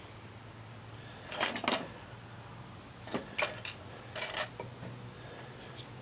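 Small metal parts clinking against each other as the wheel hardware is fitted onto a pedal quadricycle's rear axle: a few light, sharp clinks in three short clusters, over a faint steady hum.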